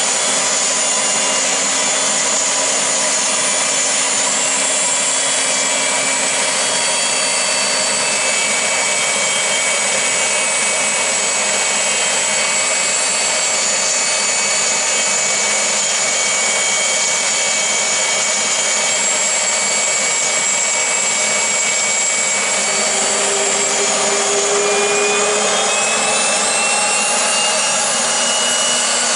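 Dornier 328JET's Pratt & Whitney Canada PW306B turbofan engines idling: a loud, steady rush with high-pitched whines, one whine rising a little in pitch in the last several seconds.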